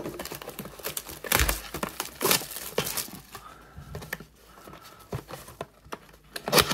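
Plastic shrink wrap crinkling and tearing as it is peeled off a cardboard trading-card box, in irregular crackles, with the box handled and its top flap pried open near the end.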